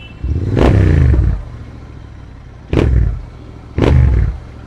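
Royal Enfield Interceptor 650's 648 cc parallel-twin engine blipped three times, the first rev longer and the other two short, each with exhaust pops and bangs from its Code6 pops-and-bangs tune, over the bike's idle.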